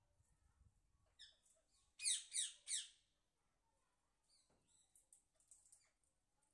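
Rose-ringed parakeets calling: three loud, harsh screeches in quick succession about two seconds in, each falling in pitch, with softer scattered chirps before and after.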